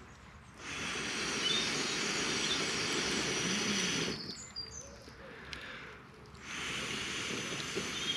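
A person blowing hard through cupped hands into campfire embers to coax them into flame: two long, steady breaths of rushing air, the second starting about six seconds in. Faint bird chirps.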